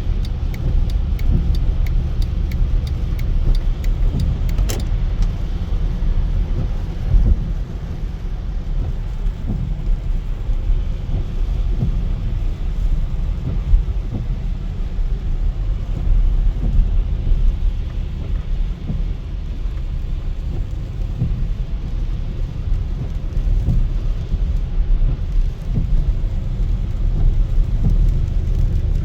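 Car cabin noise while driving: a steady low rumble of engine and tyres on wet pavement. A run of light quick ticks sounds in the first few seconds, with a single sharp click just before the fifth second.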